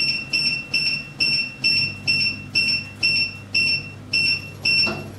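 Wall-hung gas boiler's control panel beeping as its button is pressed repeatedly to step the heating temperature setting up. Each beep is short and high, and they come evenly a little over twice a second.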